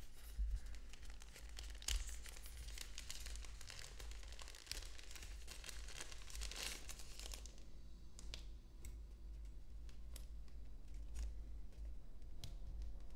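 Thin packaging wrap crinkling and rustling as it is pulled off a small camera mount by hand. The crinkling is dense for the first seven seconds or so, then thins to scattered light clicks and rustles.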